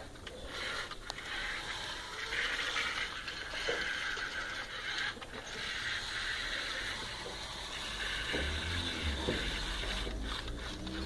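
Huina 1550 radio-controlled toy excavator's small electric motors and plastic gearboxes grinding and whirring as it works. A low hum joins about eight seconds in.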